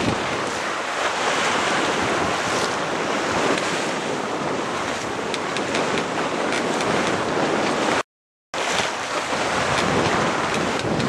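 Wind buffeting the microphone and waves rushing and splashing along the hull of a Westerly Fulmar sailing yacht beating close-hauled. The sound cuts out briefly about eight seconds in.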